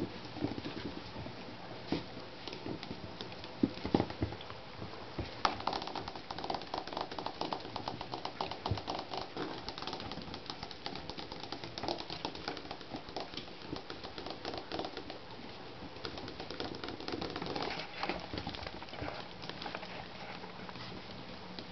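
Shichon puppies grunting and whimpering softly, with many small clicks and scuffles from their mouthing and pawing throughout.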